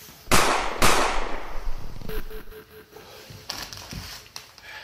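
Two loud sudden crashing booms about half a second apart, each dying away over a second or so. Near the end, a plastic snack bag crinkles as it is grabbed.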